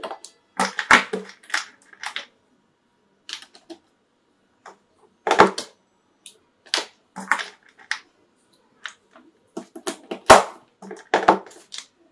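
Irregular clicks and knocks of charging cables being plugged into phones, a tablet and other small devices, with a few heavier thumps as devices are handled and set down on a hard surface.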